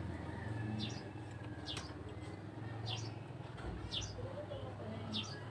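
Bird chirping in the background: short, high, falling chirps about once a second, over a faint steady low hum.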